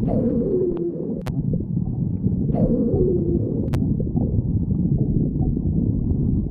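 A person's stomach growling: a continuous rumbling gurgle, with two short squeaks that fall in pitch, one at the start and one about two and a half seconds in.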